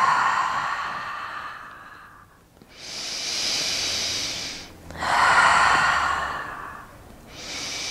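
A woman breathing slowly and deeply in a yoga stretch: two full breaths, each a long breathy exhale followed by a higher, hissing inhale.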